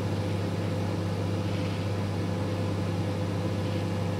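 Microwave oven running while heating a bowl: a steady electrical hum with fan noise over it.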